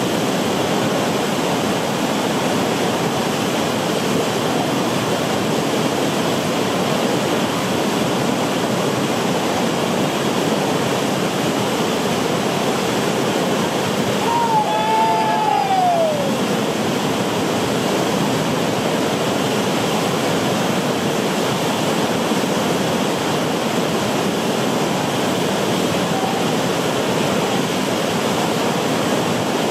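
Whitewater river rapids and a large breaking standing wave rushing steadily. About halfway through, one whoop from a person's voice falls in pitch over a couple of seconds.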